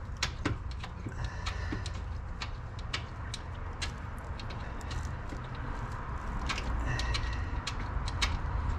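Scattered light clicks and taps of hand work on parts in a car engine bay, over a steady low rumble, with a few short bird calls.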